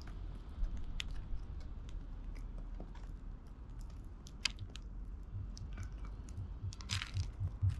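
Eurasian tree sparrows pecking at seed mix in a wooden tray: a steady run of irregular small clicks and crunches as their beaks strike seeds, with soft low knocks and a brief rustle near the end.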